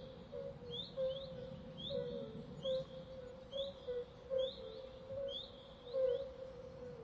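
Swamp ambience: birds give short chirps that rise in pitch, repeating about once a second, often in pairs. Under them runs a steady series of short, low calls and a faint low rumble.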